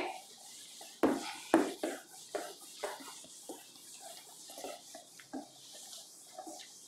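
Handheld duster wiping a whiteboard clean in a series of short, irregular rubbing strokes, louder in the first few seconds and fainter after.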